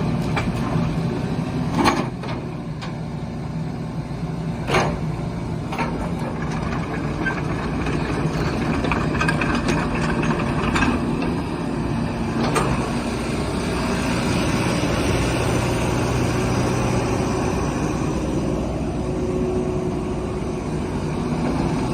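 Kubota 185-3 excavator's diesel engine running steadily, with a few sharp clanks from the machine about two, five and twelve seconds in.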